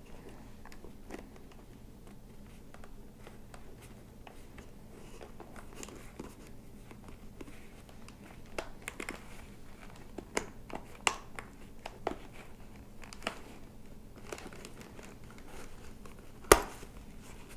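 Hands handling a motorcycle helmet's foam-and-fabric liner and an intercom's plastic mount and wiring: faint rustling with scattered small clicks, and one sharp, louder click about a second before the end.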